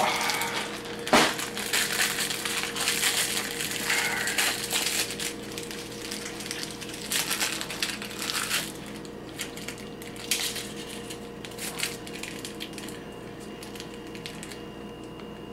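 A fortune cookie being cracked open and crushed in the hands, with a plastic bag crinkling: one sharp crack about a second in, then a run of crunching and rustling that thins out to scattered small clicks in the second half.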